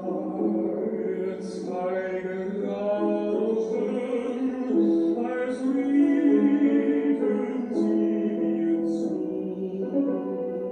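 Slow music with a singing voice holding long, sustained notes.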